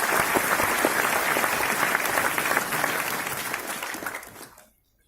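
Audience applauding, dense clapping from a large crowd that tapers off and dies away about four and a half seconds in.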